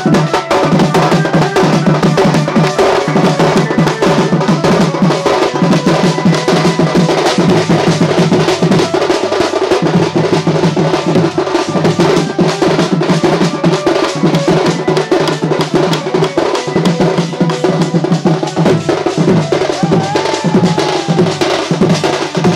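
Live folk drumming by a group on rope-laced barrel drums and a small tight-headed drum, a fast steady beat played without a break, with a pitched melody line over it.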